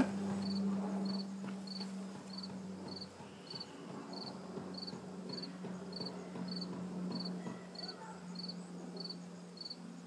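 Honeybees humming from an open hive: a low, even drone. Over it a cricket chirps in a steady rhythm, a little under two chirps a second. There is one sharp click right at the start.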